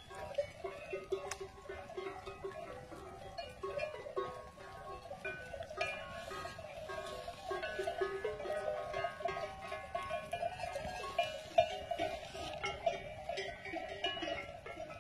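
Bells worn by a large flock of grazing sheep, clanking and ringing in a continuous, overlapping jangle.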